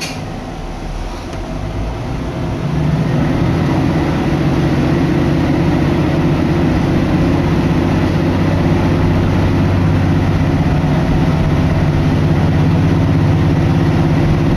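Diesel railcar engine heard from inside the cabin as the train pulls away from the station. It grows louder about two to three seconds in, then holds a steady, low drone.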